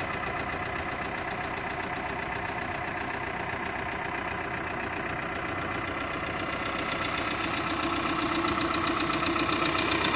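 2014 VW Crafter's 2.0 TDI four-cylinder diesel engine idling, with the usual diesel clatter, heard from under the open bonnet; it gets somewhat louder toward the end.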